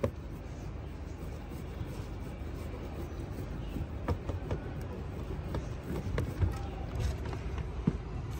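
Steady low outdoor rumble, with scattered light taps and clicks from about four seconds in as workers handle a resin bucket, brush and roller on fibreglass roof matting.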